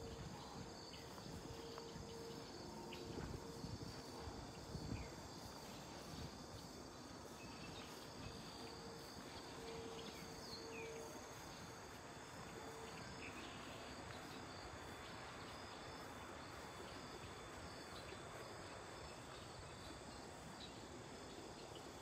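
A quiet, steady evening chorus of crickets and other insects trilling, with a few short high chirps scattered through it.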